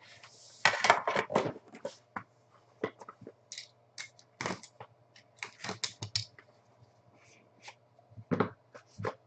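Trading-card packaging being opened and handled: an irregular run of sharp clicks, crinkles and scratches from cardboard and wrapper, louder in clusters near the start and about a second before the end.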